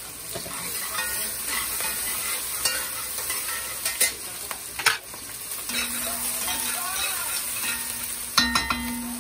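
Onions, peppers and garlic sizzling in hot oil in a cast-iron pot while a spoon stirs and scrapes through them. A few sharp knocks of the spoon against the pot come about four and five seconds in and again near the end.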